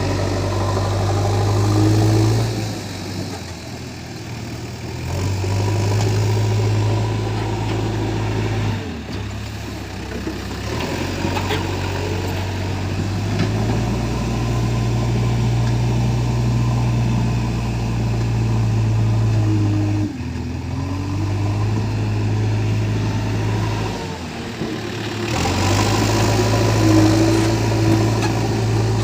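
JCB 3DX backhoe loader's diesel engine running as it loads mud, its note stepping up and down every few seconds as the throttle and hydraulics take load.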